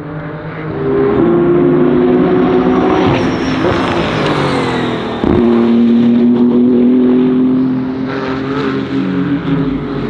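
BMW M4 GT3 race car's twin-turbo straight-six at high revs as the car accelerates past on track. The engine note drops in pitch about a second in, as on an upshift, and changes abruptly with a sharp crack about five seconds in.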